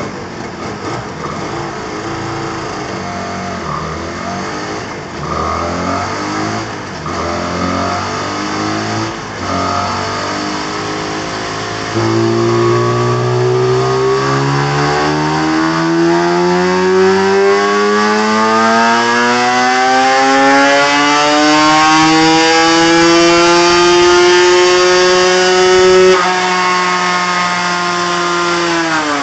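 Vehicle engine exhaust through a newly fitted replacement silencer. The engine revs unevenly for about twelve seconds, then climbs steadily in pitch in one long pull, steps down slightly near the end and drops off as the throttle closes.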